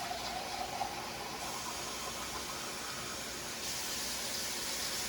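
Steady hissing and sizzling from a pot of chili cooking on the stove. It gets brighter and louder about three and a half seconds in.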